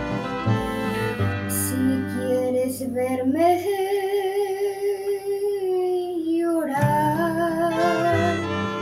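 Student mariachi ensemble of violins, guitars and vihuela playing a ranchera, with a young girl singing over it; one long held note with vibrato sits in the middle.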